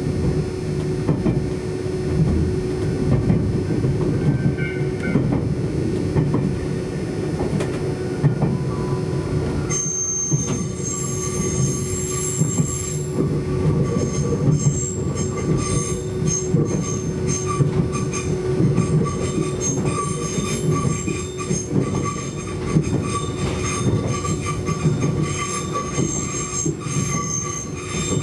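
Nagano Electric Railway limited express Yukemuri train running, heard from on board: a steady rumble of wheels on the rails, joined about ten seconds in by high-pitched wheel squeal that carries on.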